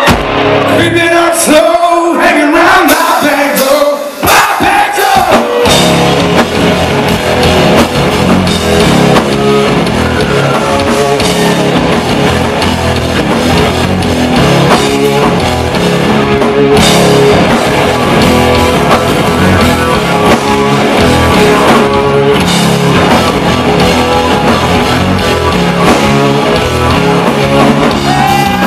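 Concert crowd shouting and cheering, then a live Southern rock band comes in at full volume about five seconds in: electric guitars, bass and drums playing a steady beat, with singing.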